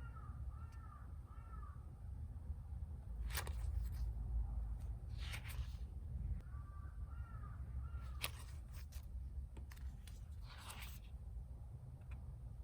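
A crow cawing outside in two runs of three or four caws, one at the start and one about six and a half seconds in. In between come a few brief papery swishes of planner pages being flipped.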